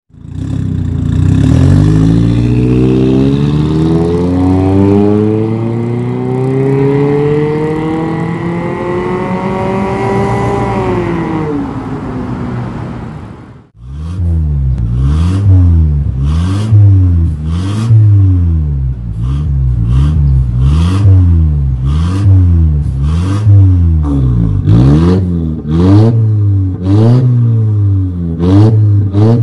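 Mercedes-Benz C200 W204 engine through an aftermarket full-system valved stainless exhaust. It first runs one long, slow rev that climbs for about ten seconds, eases back, and cuts off suddenly. Then, with the exhaust valve in Racing (open) mode, it gives about a dozen quick rev blips, each rising and falling, with a sharp crack as each one ends.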